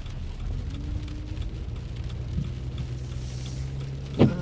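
Car running, a steady low hum of engine and road noise heard from inside the cabin, with one sharp, short sound just before the end.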